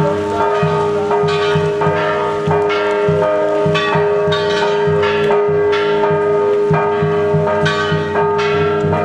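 Church bells rung in a fast, continuous peal, with strokes about twice a second over a sustained ringing hum.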